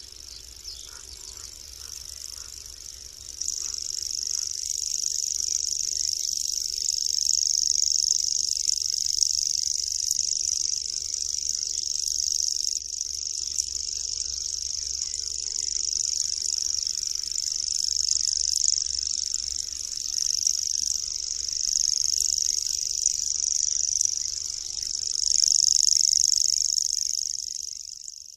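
Common grasshopper warbler singing its reeling song: one unbroken, high-pitched, insect-like trill that grows louder a few seconds in and then swells and fades in loudness.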